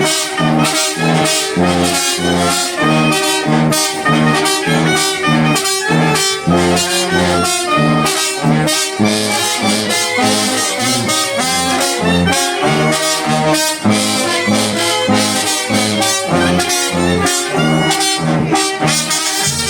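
Mexican banda de viento playing a huapango medley: trumpets and trombones carry the tune over a steady beat of repeated low bass notes.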